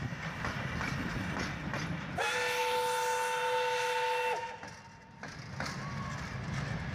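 Railway wagons rolling past, their wheels rumbling and clacking on the rails. About two seconds in, the locomotive's whistle gives one steady two-tone blast of about two seconds, which stops sharply.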